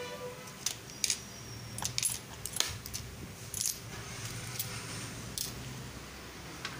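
Clear plastic tackle boxes being picked up and moved, giving scattered sharp clicks and light rattles of the small metal fishing tackle inside, such as spring feeder hooks and rod guides.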